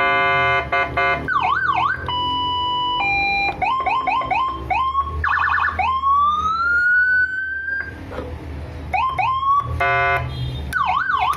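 Electronic siren from a Landun CJB 100PD siren amplifier fitted with a new sound IC, stepping through its tones: a rapid pulsed horn-like tone, fast up-and-down yelp sweeps, a steady two-tone hi-lo, quick repeated rising chirps, and a long rising wail about halfway through. Near the end the pulsed tone and the fast sweeps come round again.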